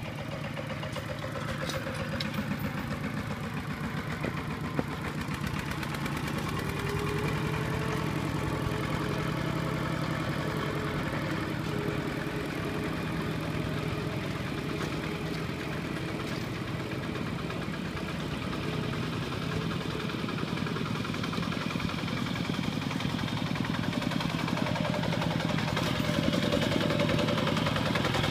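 Single-cylinder diesel engine of a Kubota two-wheel walking tractor chugging steadily under load as it pulls a loaded trailer, growing louder near the end as it comes closer.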